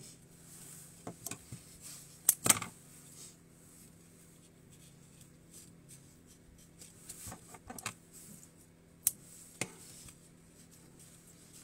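Secateurs snipping ivy stems: a few sharp clicks in pairs, the loudest about two and a half seconds in, with two more pairs after about seven and nine seconds.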